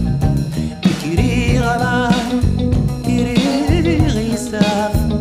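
Background music: a song with a singer over a bass and drum beat.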